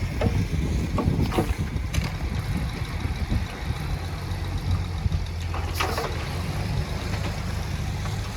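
Heavy earthmoving machine's diesel engine running steadily with a low rumble, with a few short knocks or clanks.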